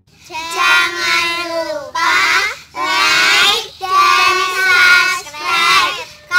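A group of young girls singing together in unison, in short sung phrases with brief breaks between them.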